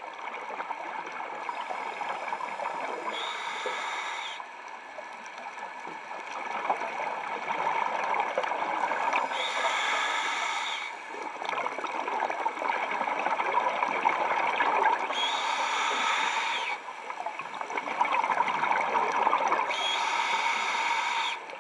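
Scuba diver breathing through a regulator, heard underwater: a hissing inhale every five or six seconds, each followed by a long crackling rush of exhaled bubbles.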